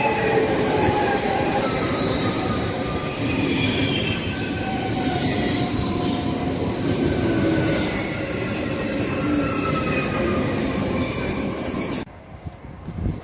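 Train running on the rails with its wheels squealing, several shrill tones sliding slowly in pitch over the steady rumble of the cars. The sound drops away suddenly near the end.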